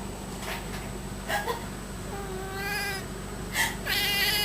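Domestic cat grumbling in two drawn-out meows, the second running on past the end. Each comes just after a short sharp puff: a person's fake sneeze, which sets the cat off grumbling.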